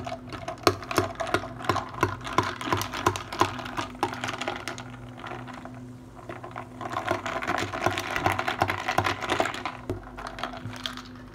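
Ice cubes clinking against a tall drinking glass as an iced blue soda is stirred: quick irregular clicks, easing off briefly, then a denser rattle of ice a few seconds before the end.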